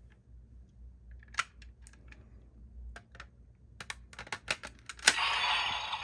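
Plastic clicks and snaps as a Zombie Raise Buckle is fitted onto a Magnum Shooter 40X toy handgun, a few at first, then a quick cluster. A loud click about five seconds in sets off a dense, noisy electronic sound effect from the toy's speaker.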